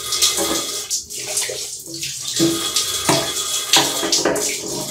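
Water running out of an electric storage water heater as it is drained, with scattered clicks of an adjustable wrench on the metal pipe fitting beneath the tank as it is unscrewed.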